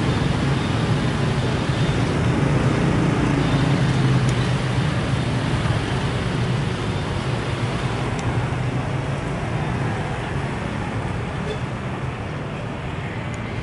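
CC201 diesel-electric locomotive hauling flat wagons loaded with rails, passing at low speed: a steady diesel engine drone over the rumble of the moving train, fading over the second half as it draws away.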